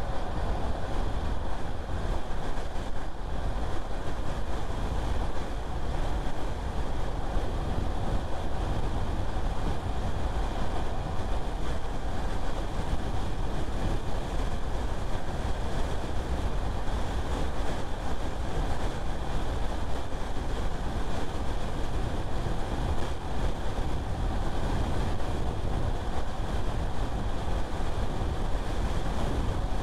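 Steady road noise of a car being driven: engine and tyres with a deep, even low rumble.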